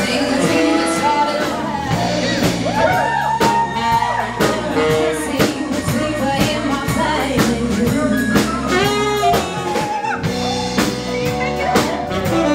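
Live band playing: drum kit keeping a steady beat, electric guitar and saxophone, with a woman singing over them.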